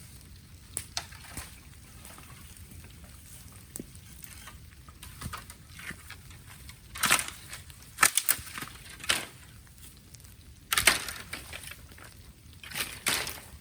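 Bamboo burning in an open fire, crackling with scattered sharp pops and several short, loud crackling-hissing bursts from about halfway through to near the end.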